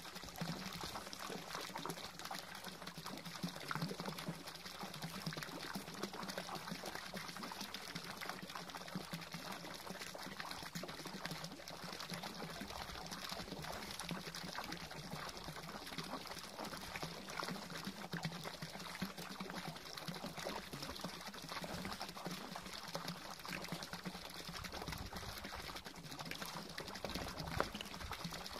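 Garden pond fountain pouring a steady stream of water into the pond, splashing continuously.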